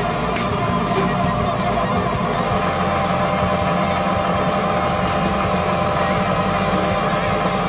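Shredding machine running with a steady mechanical hum, with a few faint clicks.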